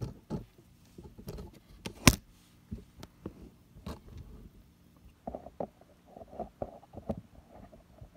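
Cardboard shipping box being handled and opened by hand: scattered clicks, knocks and rustles, with one sharp knock about two seconds in and a run of small quick knocks and ticks in the last few seconds.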